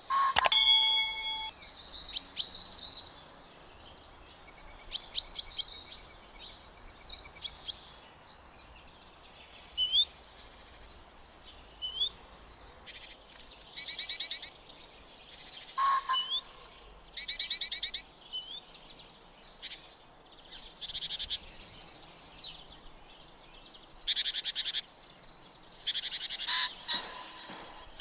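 Songbirds singing and calling in short phrases of chirps, whistled notes and rapid trills. Just after the start, a sharp click followed by a short ringing chime, the sound effect of the on-screen subscribe button.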